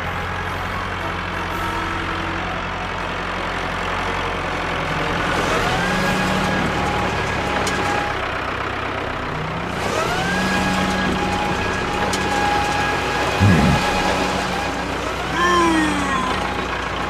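Large truck engine running steadily, revving up three times with the pitch rising and then holding. A short thud comes about thirteen and a half seconds in.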